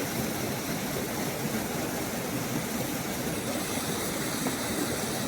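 Small forest stream babbling steadily, an even rush of running water.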